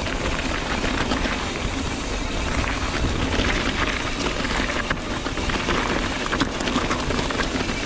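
Mountain bike rolling down a dirt trail, recorded from a chest-mounted GoPro: a steady rushing noise of tyres and wind, broken by many small clatters and rattles from the bike over rough ground.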